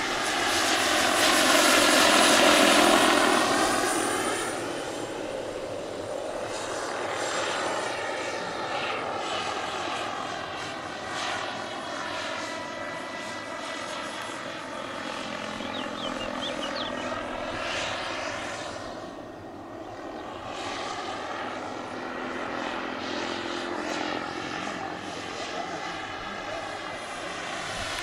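Turbine-powered RC scale model of an H120 (EC120) Colibri helicopter in flight, its turbine giving a steady high whine over the rotor noise. It swells to its loudest as it passes close about two seconds in, then fades and returns as it flies around, dipping briefly near the twenty-second mark.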